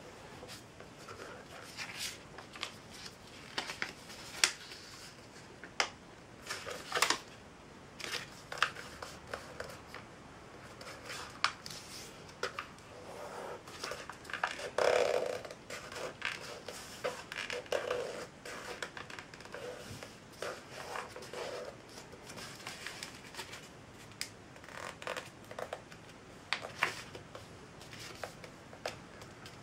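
A sheet of paper being folded and creased by hand on a tabletop: irregular crisp crackles, rustles and taps as fingers press the creases flat, with a louder, longer rustle about halfway.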